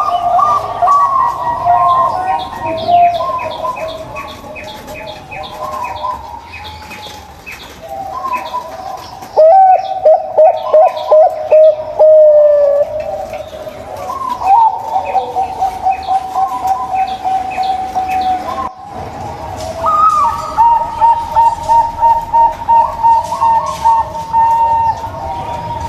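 Zebra doves (perkutut) cooing: rapid runs of short, pulsed coos, with more than one bird at different pitches overlapping. The loudest runs come about ten seconds in and again from about twenty seconds.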